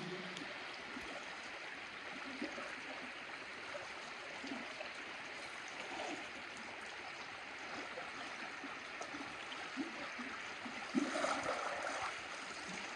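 Crooked River flowing steadily over rocks: a soft, even rush of running water. A brief louder disturbance comes near the end.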